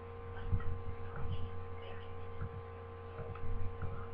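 Steady electrical mains hum, with a string of irregular soft low thumps and clicks over it.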